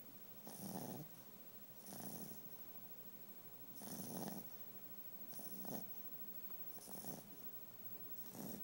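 A sleeping dog snoring: six short snores in a row, about one every one and a half seconds.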